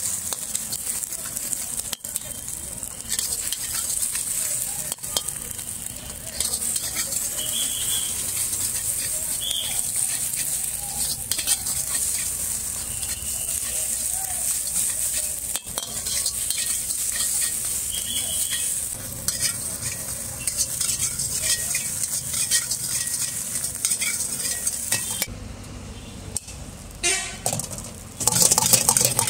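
Egg sizzling in a large iron wok as a steel spatula stirs and scrapes it, with sharp clacks of the metal spatula against the pan.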